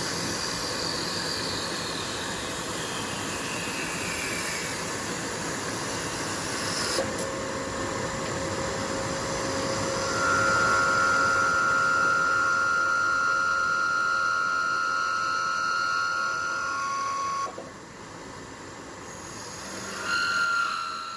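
Genini automatic wood-turning lathe running and cutting a timber finial: a steady, noisy machining sound with a falling whine over the first few seconds. It grows louder about seven seconds in, carries a steady whine from about ten seconds in, and drops sharply about seventeen seconds in, swelling again briefly near the end.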